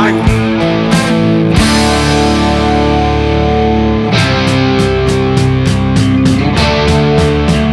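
Rock music with guitar over a steady drum beat, no singing.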